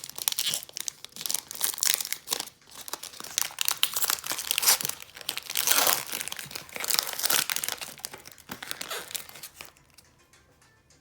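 Plastic trading card pack wrapper being torn open and crinkled by hand, a dense run of crackling and tearing that stops near the end.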